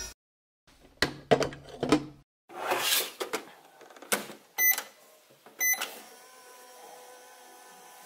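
Just Like Home toy microwave: the plastic door is knocked and clicked shut over a glass, two short button beeps follow, and then the toy plays a faint, steady electronic hum for its running sound as its timer counts down.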